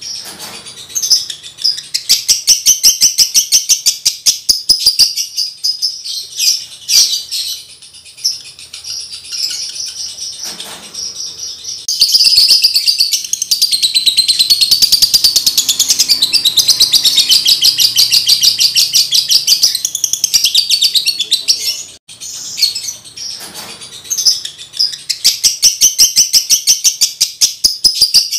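Male lovebird in breeding condition singing a fast, chattering trill in runs of a few seconds with short breaks between them. In the middle comes one long unbroken run of about nine seconds.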